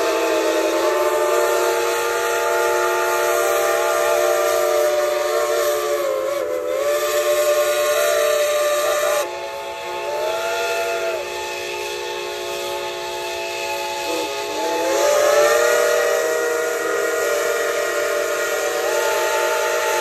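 Several steam locomotive whistles blowing together in overlapping chords of different pitches over a steady steam hiss, each sliding in pitch as it opens or closes. Some drop out about nine seconds in, and the chord swells louder again around fifteen seconds.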